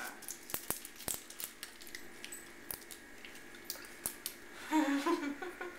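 A person chewing a big mouthful of iced cupcake: many small, sharp, wet mouth clicks, then a short hummed 'mm' about five seconds in.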